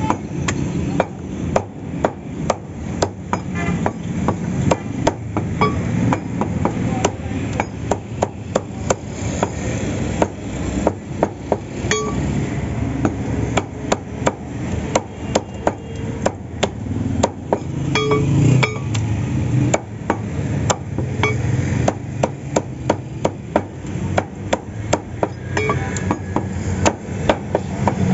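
Cleaver chopping raw chicken on a wooden log chopping block: a steady run of sharp chops, two or three a second.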